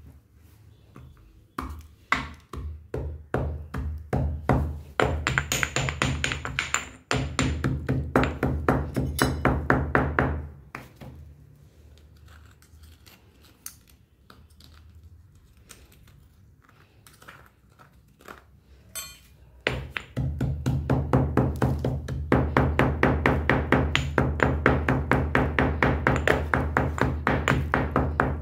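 Stone pestle pounding in a granite mortar with quick, even strokes, crushing a dry, crumbly lump to powder. The strokes come in two long runs with a quiet gap of several seconds in the middle.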